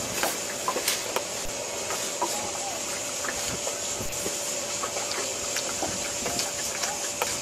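Water lapping and sloshing against the hull of a small fishing boat, with small irregular splashes over a steady hiss and a faint steady hum.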